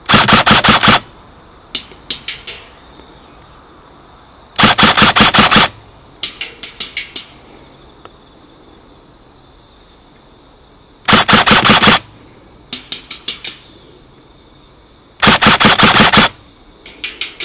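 Airsoft gun firing four full-auto bursts of rapid shots, each about a second long. About a second after each burst comes a fainter patter of clicks, the BBs striking the plate target downrange.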